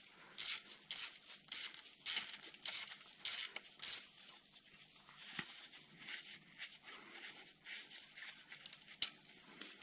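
Small socket ratchet rasping in short strokes, about two a second for the first four seconds, as a Torx T25 bolt is undone. Fainter scattered clicks follow as the loosened bolt is turned out by hand.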